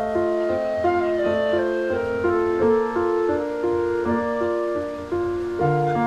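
Instrumental background music: a keyboard melody of steady held notes, changing two or three times a second over sustained lower chords.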